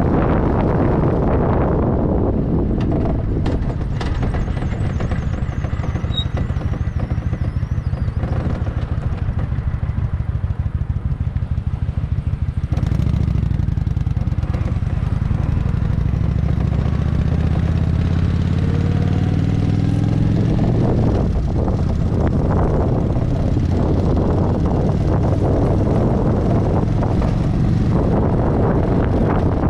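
Kawasaki Vulcan 900 V-twin engine running at low speed. About halfway through its note rises steadily for several seconds as the bike accelerates, then eases off. Wind rushes over the microphone at the start and again in the latter part.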